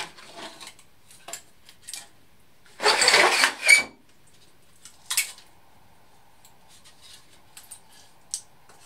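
Clicks, knocks and clatter of a thin cast carbon-fibre body side and its mould being handled on a perforated steel table, with a loud scraping rustle about three seconds in and a sharp knock a couple of seconds later.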